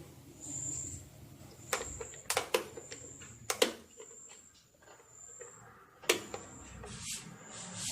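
A few sharp clicks and knocks of hand tools and hard plastic parts being handled while working on the scooter's handlebar cover. A thin, high chirping tone comes and goes in the background.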